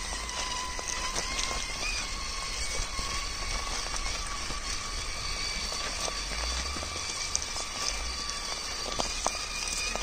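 Radio-controlled scale crawler driving over rough ground: a steady electric-motor whine with many scattered clicks and crunches from the tyres and chassis.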